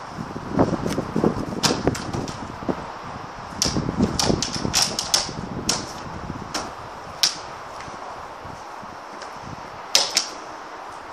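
Irregular sharp clicks and knocks with low thuds, heavy in the first half and scattered later: a Staffordshire bull terrier and pups tussling over a clear plastic toy.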